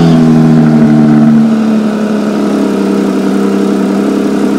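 Porsche 911 GT3's naturally aspirated flat-six idling just after start-up. It is louder for about the first second and a half, then settles into a steady idle.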